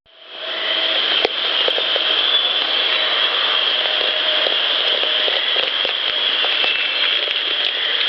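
Small clicks and crackles close to an unattended field recorder's microphone, one sharper about a second in, over a steady high insect drone. The uploader takes the clicks for something messing with the recorder.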